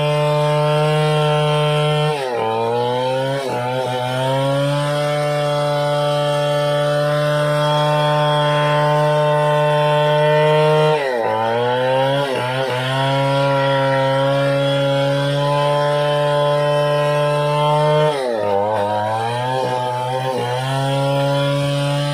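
Chainsaw running at full throttle while ripping a long squared ironwood (kayu besi) beam lengthwise. It holds a steady high engine note, and three times, near the start, about halfway and near the end, the pitch sags and climbs back within a couple of seconds.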